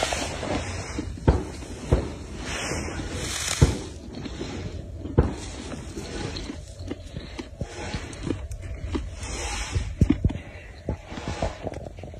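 Fresh powdery snow crunching as a hand scoops and squeezes it: irregular crisp crunches with sharp clicks every second or so.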